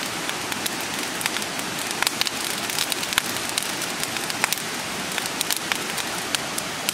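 Split-firewood campfire crackling, with frequent sharp irregular pops, over a steady rushing hiss from a mountain stream.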